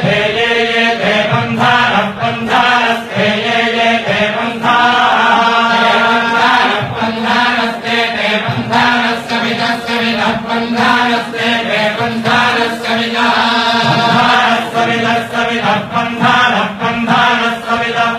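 Vedic chanting: voices reciting Sanskrit hymns around a steady held pitch, phrase after phrase with brief breaks between them.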